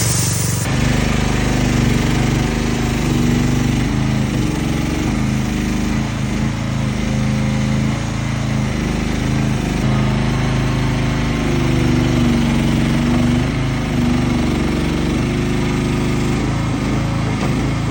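Mini tracked loader's engine running, its speed dipping and rising again and again as the machine works. A short hiss sounds at the very start.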